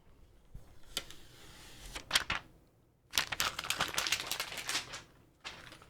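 A mechanical keyboard being handled and turned over: soft rustling with a few sharp clicks, then a dense clatter of clicks and rattling for about two seconds.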